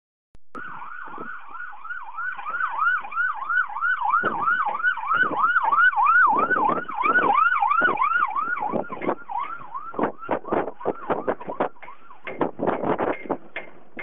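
A siren or alarm sounding a fast, repeated yelp of swooping tones, about three a second. After about nine seconds it fades, and gusts of wind buffet the microphone.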